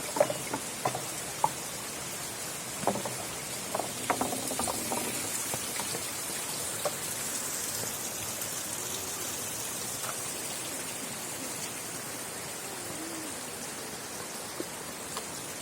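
Knocks and clicks of balls on a wooden marble run, clustered in the first five seconds with a few single clicks later. A steady rushing hiss, like rain or running water, lies under it all.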